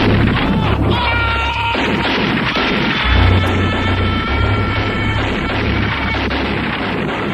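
Instrumental intro of an early-1990s hip hop track: deep bass notes coming and going under a dense, crashing noise, with a held high-pitched tone layered on top from about a second in until near the end.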